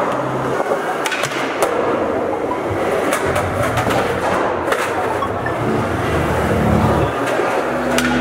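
Skateboard rolling on pavement, its wheels running in a steady gritty rumble, with a few sharp clacks of the board through the roll.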